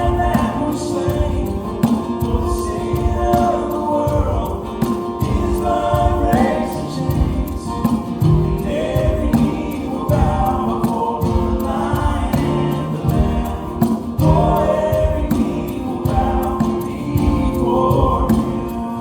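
Christian worship song with a choir singing over a steady beat.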